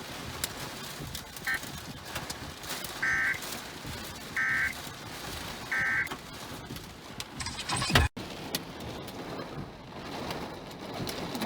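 Weather-radio alert data tones: four short two-tone electronic buzzes about a second and a half apart, the end-of-message burst after a severe thunderstorm warning. Underneath, hail hits steadily with scattered ticks, and there is one loud thump about eight seconds in.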